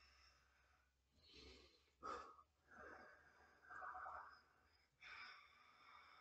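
Near silence broken by a few faint breaths, four or five short exhalations or sighs, one starting sharply about two seconds in.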